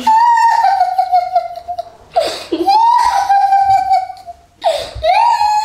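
Two children laughing and squealing, with three long, high-pitched held cries.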